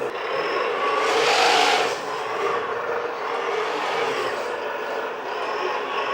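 TWOLF M715 Jeep RC crawler driving in high gear: a steady running whine, with a louder scrape of tyres sliding on the tabletop about a second in, lasting under a second.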